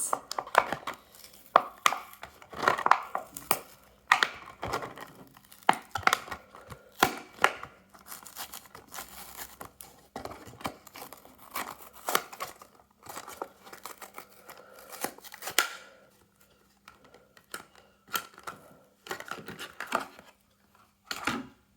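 Hot Wheels blister pack being torn open by hand: cardboard backing tearing and the plastic blister crinkling in irregular bursts of crackles, thinning out in the last few seconds.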